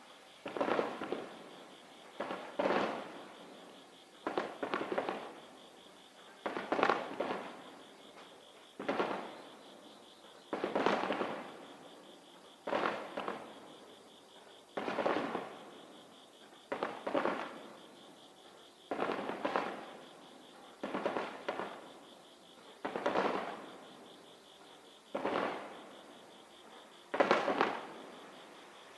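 Aerial firework shells bursting in a steady series, about one every two seconds, each boom dying away over a second or so.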